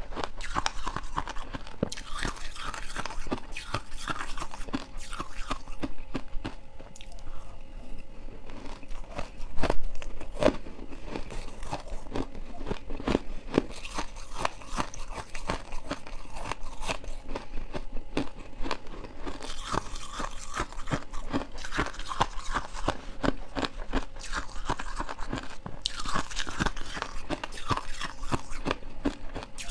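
Close-miked crunching and chewing of powdery frost ice, a dense crackle of small crunches with one louder crunch about ten seconds in. A metal spoon scoops the ice from a steel pot.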